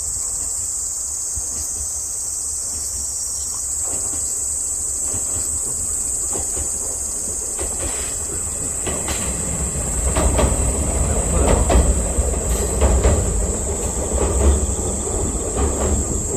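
Wakasa Railway 'Hayabusa' train crossing a steel railway bridge: a rumble and wheels clacking over the rail joints, which grow louder from about ten seconds in. A steady high insect buzz runs underneath.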